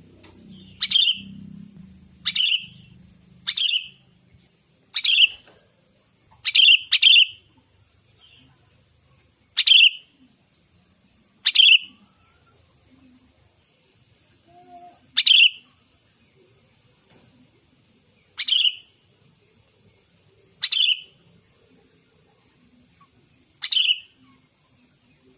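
A sooty-headed bulbul (kutilang) giving short, sharp calls that each drop quickly in pitch, about a dozen of them at uneven gaps of one to three seconds, once as a quick double. It is the call of a wild bird seeking a rival.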